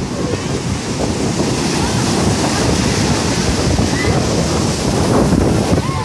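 Heavy storm surf on the Black Sea breaking and washing up a sand beach in a continuous rushing noise, with wind buffeting the microphone.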